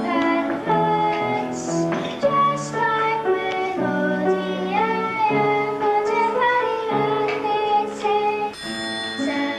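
A child singing a solo song on stage, with instrumental accompaniment under the voice.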